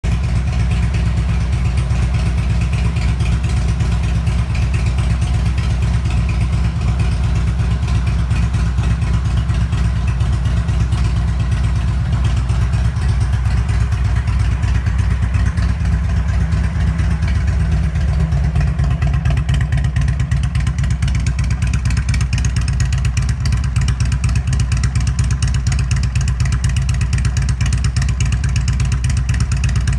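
Harley-Davidson Street Glide Special's V-twin engine running steadily through Rinehart Racing Slimline Duals headers and 3.5 in Rinehart slip-on mufflers, with a deep rumble.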